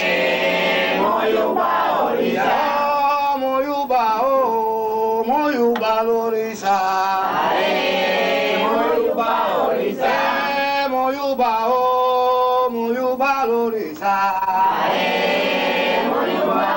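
A group of voices, mostly men's, singing a Lucumí chant for the orishas together in long sustained phrases.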